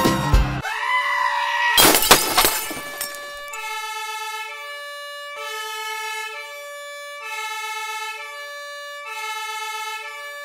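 Music cuts off abruptly, then a short rising whine and a loud burst of noise about two seconds in. After that, a two-tone emergency vehicle siren alternates steadily between a higher and a lower note, about one note a second.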